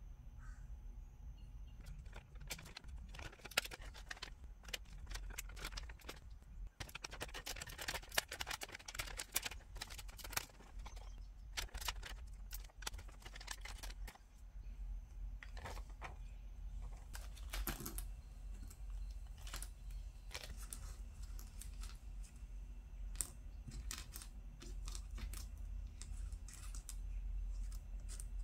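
Small plastic nail supplies handled by hand: scattered light clicks, taps and crinkles, thickest about a quarter of the way in, as iridescent film flakes are fingered and clear plastic dual-form nail tips are set down on a wooden tabletop. A low steady hum runs underneath.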